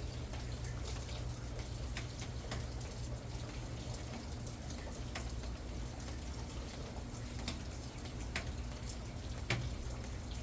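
Rain dripping: scattered, irregular taps of drops over a faint steady hiss and a low rumble.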